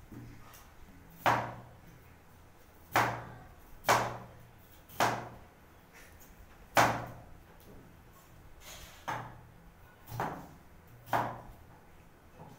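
A kitchen knife slicing a potato, each cut ending in a sharp knock of the blade on the cutting board: about eight knocks at an unhurried, uneven pace, a second or two apart.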